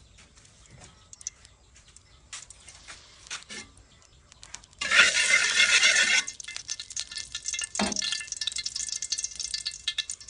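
Metal ladle clicking lightly against a steel wok as cooking oil heats in it. About five seconds in the oil is spread over the hot pan and a loud hiss starts, then settles into a steady crackling sizzle.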